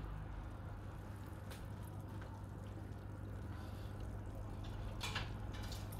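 Quiet room tone with a steady low hum, broken by a few faint clicks and a soft knock about five seconds in.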